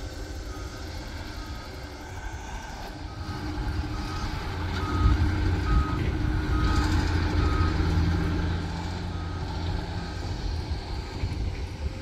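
Reversing alarm of a construction machine beeping at one steady pitch, at roughly two beeps a second, over the low rumble of diesel earthmoving machinery at work. The rumble and the beeps are loudest in the middle and die away near the end.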